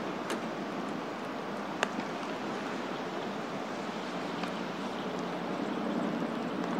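Steady outdoor wind noise on the microphone, with a few short sharp clicks: one just after the start, as a tossed baseball lands in a leather glove, and a louder one about two seconds in.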